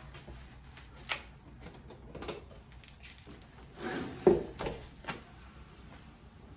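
Cardboard shipping box being opened by hand: flaps pulled back and the inner cardboard product box handled, giving scattered scrapes and knocks, the loudest a sharp knock a little past the middle.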